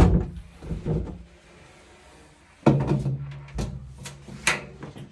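Clunks and knocks of dryer cabinet parts being handled: a loud knock at the start, another about a second in, then more clattering knocks over a low hum in the second half.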